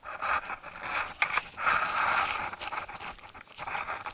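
Scraping and crumbling as fingers rub clumped soil off a small crotal bell held in the palm, with a few sharp clicks about a second in.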